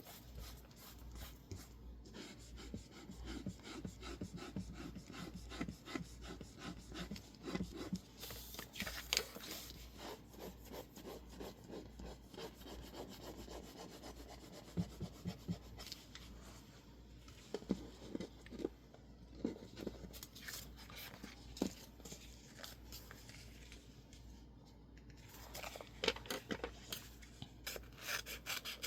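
Masking tape being pressed and rubbed down onto a sheet of label paper: a steady, close scratchy rubbing of paper and tape, with scattered sharper clicks and taps.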